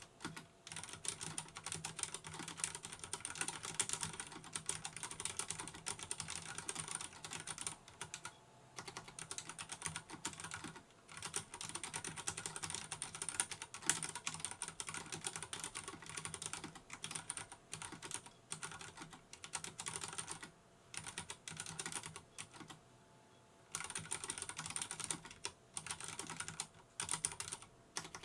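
Fast typing on a Vortex Race 3 RGB mechanical keyboard with Cherry MX Brown switches: a dense run of key clicks and clacks in long bursts, broken by short pauses and one longer pause a few seconds before the end.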